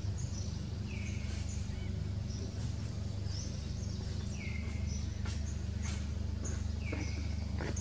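Outdoor ambience with a short, falling animal call repeating every few seconds and faint high chirps, over a steady low rumble. A few sharp rustles and clicks come near the end, fitting dry leaves stirred by the monkeys moving.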